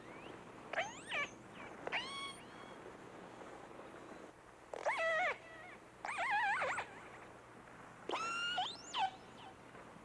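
Killer whale distress calls heard through a hydrophone: five short cries with pauses between them, each rising and falling in pitch, some wavering.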